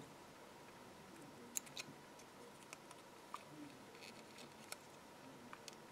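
Small pointed craft scissors snipping into die-cut decoupage paper: a handful of faint, sharp, separate snips a second or so apart, over quiet room tone.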